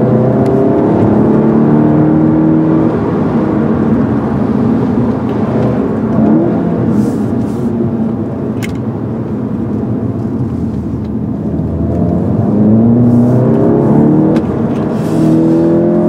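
Volkswagen Golf GTI Mk7's 2.0-litre turbocharged four-cylinder engine, heard from inside the cabin under hard driving. The note rises through the revs, eases off lower and quieter around the middle, then climbs again, with a short dip in loudness near the end.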